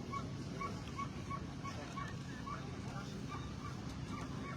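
Rapid run of short, high squeaks, about four a second, over a steady background hubbub; the squeaks grow more scattered in the second half.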